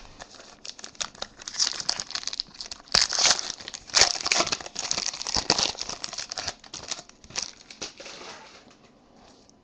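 Foil wrapper of a Panini Select football card pack being torn open and crinkled by hand: a dense crackling rustle, loudest about three to four seconds in, that dies down near the end.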